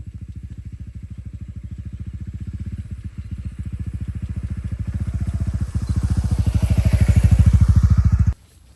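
An engine running with a rapid, even putter, growing louder as it nears and then cutting off abruptly near the end.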